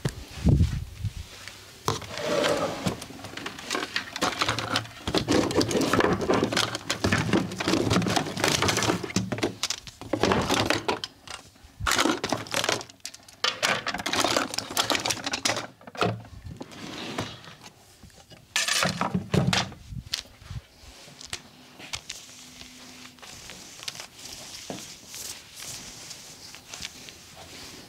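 Hands working on bare skin in a massage: quick runs of slaps and taps mixed with rubbing, coming in bursts with short pauses for about twenty seconds, then quieter and sparser.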